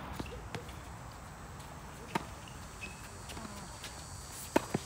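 A tennis ball struck by racquets and bouncing on a hard court during a doubles rally: sharp pops, with one loud hit about two seconds in and two quick pops close together near the end, and fainter knocks at the start.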